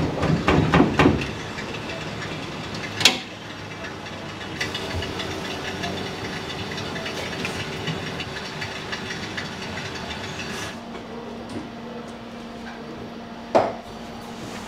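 Kitchen work sounds: metal utensils clattering against an aluminium pot at the start and a sharp clack about three seconds in, then the steady hiss of a gas burner heating a pot of boiling water. A single knock comes near the end.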